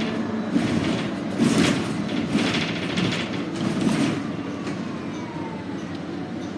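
Interior ride noise of a 2019 Nova Bus LFS hybrid under way: a steady rumble, with several louder rattles and clatters between about half a second and four seconds in. A faint whine falls in pitch around four seconds in.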